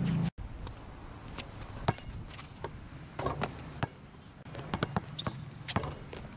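Basketball bouncing on an outdoor hard court: a string of sharp, irregular thuds over a few seconds.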